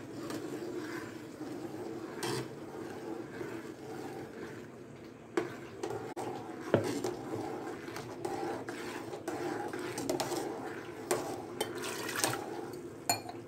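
Thick ground rice-and-almond milk paste pouring from a steel mixer-grinder jar into a pan of hot milk. Now and then the metal jar or spoon clinks sharply against the aluminium pan.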